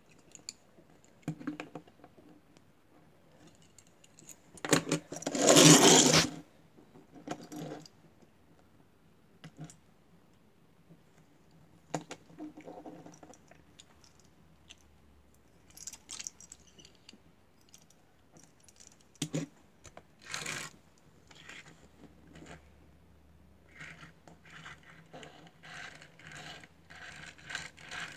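Small toy cars handled and moved about on a wooden tabletop: scattered clicks, taps and short scrapes, with a louder rustling burst about five seconds in and a run of quick ticks near the end as a toy car is pushed along the table.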